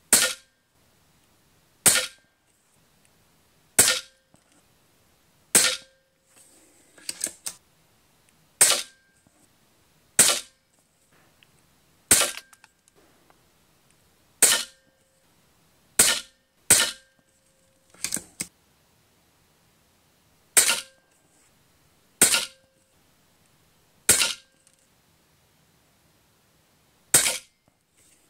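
Airgun Technology Vixen PCP air rifle firing FX 18 grain pellets shot after shot, about fifteen sharp cracks each with a short ring, one every one and a half to two seconds. A few quieter clicks fall between some of the shots.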